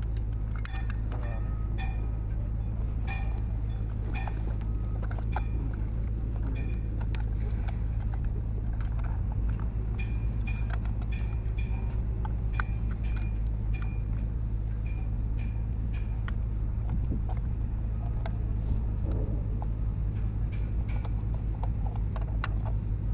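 Light metallic clicks and clinks as an exothermic welding mould and its handle clamp are fitted and adjusted over crossed stranded copper earthing cables, scattered irregularly over a steady low rumble.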